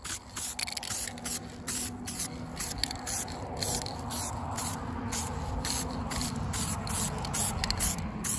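Aerosol can of self-etching primer spraying in short, quick bursts, about three hisses a second, laying on a very light coat.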